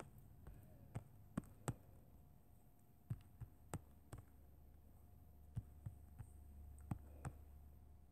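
About a dozen light taps on a tablet's touchscreen during drawing, short sharp clicks at uneven intervals, over a faint steady low hum.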